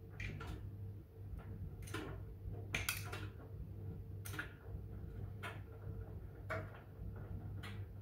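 Miele W1 WCR860WPS front-loading washing machine tumbling a wash load: a steady motor hum, with irregular slaps and clicks as the wet clothes drop in the drum, about one every second.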